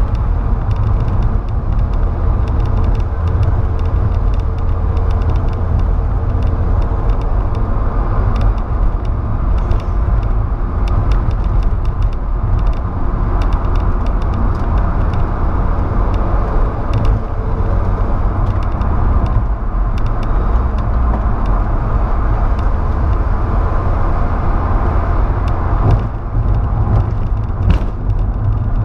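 Steady engine and road noise heard inside the cab of a Volkswagen Saveiro pickup cruising along a highway, with a dense low rumble throughout.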